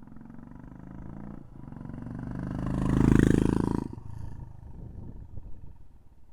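Royal Enfield Classic 350 single-cylinder engine idling through a K-Indori aftermarket silencer, revved once: the exhaust note builds from about a second and a half in to a loud peak around three seconds, then drops back to idle just before four seconds.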